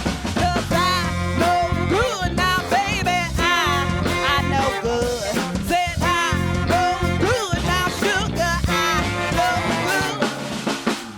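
Live band playing an instrumental break: drum kit with snare and kick, a bass line, and a lead melody that bends and slides in pitch. The bass drops out briefly near the end.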